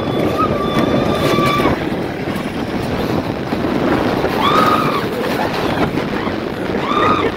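Rail-guided bobsled cart running down its track: a steady rushing rumble of the ride with wind on the microphone. A thin steady whine sounds for the first second and a half or so. A rider gives short whooping shouts about four and a half seconds in and again near the end.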